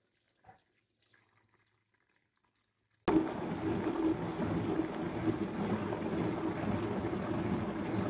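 Countertop blender switched on suddenly about three seconds in, its motor running at a steady pitch as it purées soaked dried chiles, garlic, onion and water into a sauce, the liquid churning inside the jar. Before it, a faint knock.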